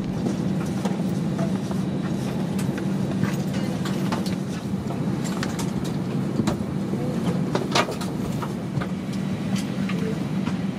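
Cabin ambience inside a parked Airbus A320 while passengers board: a steady low hum from the aircraft's systems, with scattered clicks and knocks throughout.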